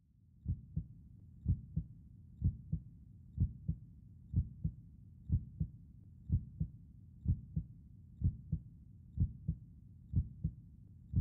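Heartbeat: steady lub-dub double thumps, about one beat a second, low-pitched, over a faint low rumble.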